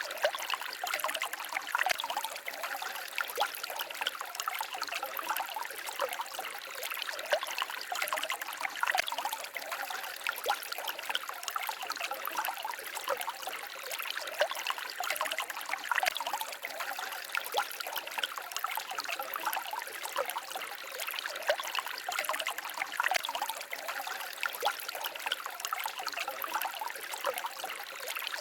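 Shallow forest stream babbling and trickling over stones, a steady splashing without any low rumble.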